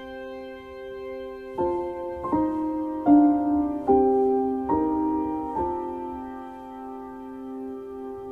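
Slow, gentle piano music: a held chord, then a run of single notes struck about once every second, then a long held note.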